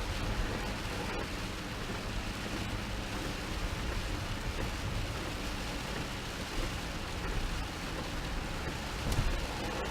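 Steady rain on a car, heard from inside the moving car over a low road rumble, with one brief tap about nine seconds in.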